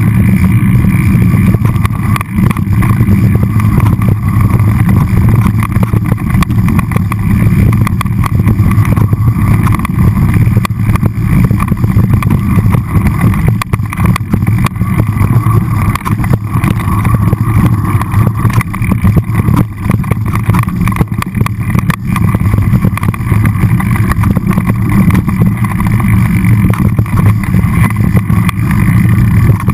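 Loud, steady rumble of wind and trail vibration on a camera carried by a mountain bike rolling down rocky dirt singletrack.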